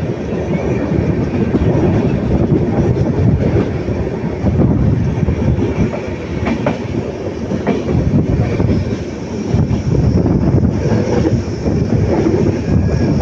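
Passenger train running, heard from aboard a coach: a steady rumble of the wheels on the track with a few clacks over rail joints.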